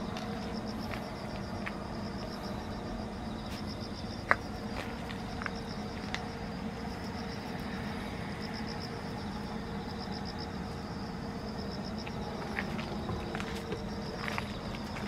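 An insect trilling steadily in a rapid, even pulse, over a steady low hum. A few faint clicks and taps, one sharper click about four seconds in.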